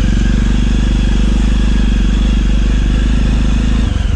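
Motorcycle engine running steadily while riding, with an even pulsing note. Near the end the note changes and drops.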